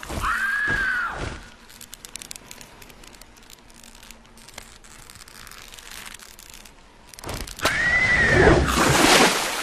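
Cartoon owl creature screeching twice, each call arching up and then down in pitch, with faint crackling between the calls.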